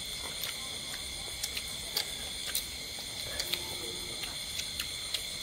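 A steady high-pitched chorus of night insects, over frequent sharp irregular clicks and smacks of people chewing and tearing grilled duck with their hands.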